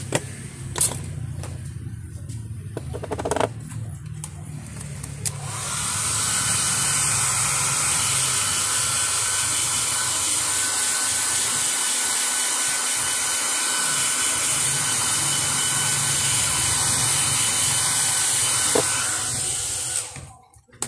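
A hand-held blower switches on about five seconds in and runs steadily for some fifteen seconds, a smooth rushing blast of air with a faint whine, then cuts off just before the end. Before it, a low hum and a few sharp clicks.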